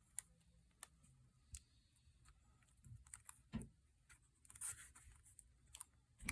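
Near silence broken by faint, scattered small clicks and taps of hands handling the opened phone and its parts.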